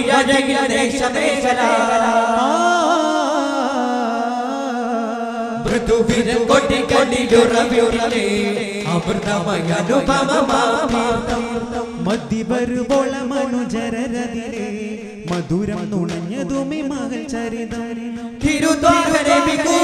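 Daff muttu: a group chants a song in chorus while beating daff frame drums in rhythm. The drum strokes thin out for a few seconds about two seconds in, return about six seconds in, and the singing and drumming swell louder near the end.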